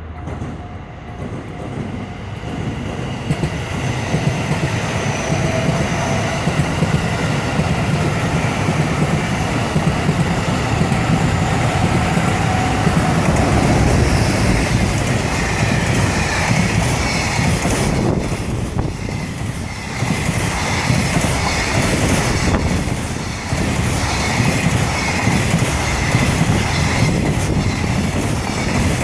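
Trains passing close by: a long run of wheels clattering over the rails with some wheel squeal, building over the first few seconds and then staying loud.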